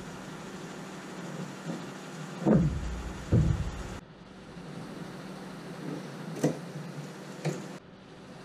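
Handling noises of measuring and marking inside a wooden boat hull: two heavier low knocks or rubs about two and a half and three and a half seconds in, then a couple of sharp clicks, over a steady shop hum.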